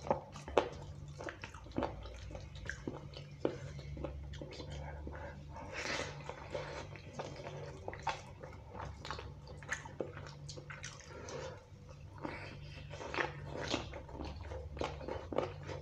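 Close-miked eating sounds: wet, sticky clicks of fingers mashing yellow khichuri rice into chicken curry on a steel plate, followed by biting and chewing of the chicken and rice, over a steady low hum.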